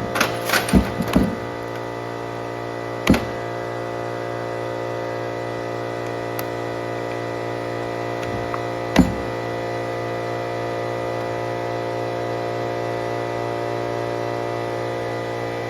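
A steady hum made of many pitched tones at once, with a few clicks in the first second and a sharp knock at about three seconds and again at about nine seconds.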